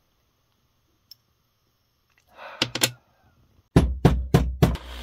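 Hammer striking a punch on copper pipe clamped in a steel bench vise, marking hole positions for drilling: a couple of lighter knocks, then four sharp blows about three a second near the end.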